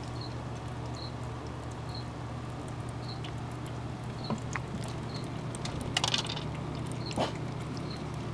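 A cat eating dry kibble from a plastic feeder bowl, with scattered sharp crunches and clicks, loudest about six and seven seconds in. Beneath it runs a steady low hum, and a faint high chirp comes about once a second.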